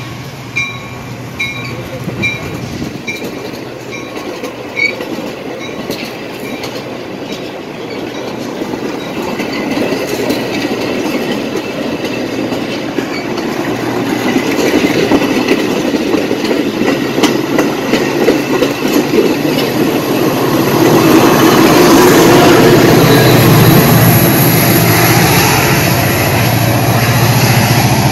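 Bilevel commuter train cars rolling past along the platform, wheels clacking over the rail joints. The sound builds steadily, and a deep, steady engine drone joins about two-thirds of the way through. A level-crossing bell dings rapidly at the start.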